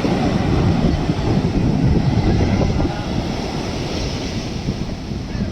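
Ocean surf breaking and washing on the shore, with wind buffeting the microphone. The surf is loudest in the first three seconds, then eases slightly.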